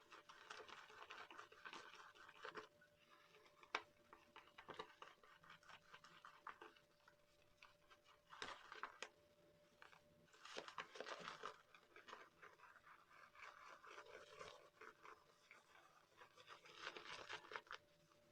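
Faint scratchy swishing of a synthetic shaving brush working soap into lather against the ridged inside of a lather bowl, in uneven bursts, with one sharp tick about four seconds in.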